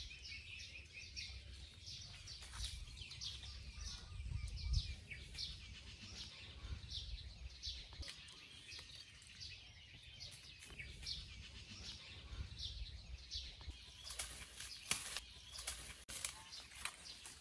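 Small birds chirping over and over, short high notes a few each second, over a low rumble. Near the end, sharp rustling noises join in.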